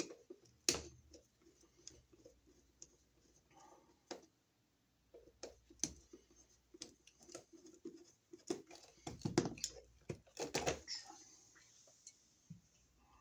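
Scattered small clicks, taps and scrapes of hands and hand tools working the wiring of a wall receptacle. The clicks come closest together and loudest about two-thirds of the way through.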